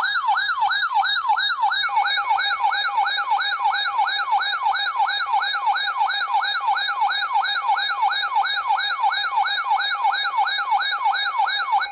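Electronic alert siren sounding a fast, evenly repeating rising sweep, about two and a half a second, over steady alarm tones. It opens a tornado warning alert.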